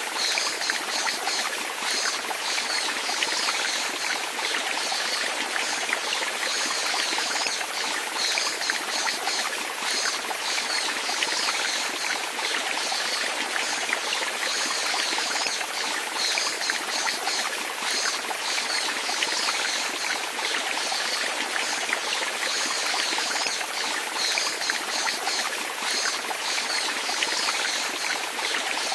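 Running water flowing and trickling steadily, an even splashing rush with fine bright droplet detail.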